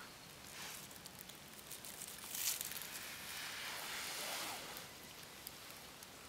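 Dry fallen leaves rustling and crackling as a Dione's ratsnake crawls through the leaf litter, in irregular swells with a sharp crackle about two and a half seconds in.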